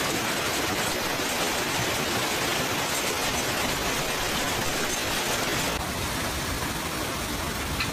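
Heavy storm downpour of rain and hail, a dense, steady hiss, its character shifting slightly about six seconds in.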